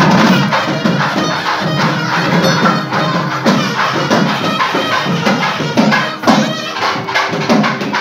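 Loud traditional temple festival music: drums and percussion beating a quick, steady rhythm with a melody line playing over them.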